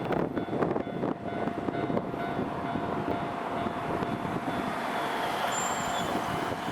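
A Wakayama Electric Railway Kishigawa Line electric train running past a level crossing: a steady rush of wheel and running noise with a thin steady tone beneath it. A brief high squeal comes near the end.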